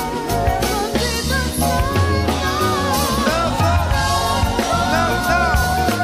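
Live soul band playing a groove on drum kit with cymbals and bass, with a singer's gliding vocal runs over the top.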